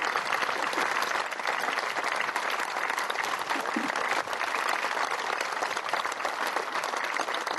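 Large seated audience applauding with dense, steady clapping.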